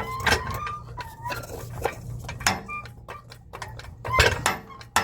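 Metal knocks and clicks with short squeaks as the front differential of a GM SUV is shifted and pried past the axle.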